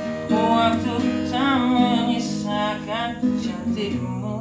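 Acoustic guitar strummed as song accompaniment, with a man's voice singing a short drawn-out phrase over it without clear words.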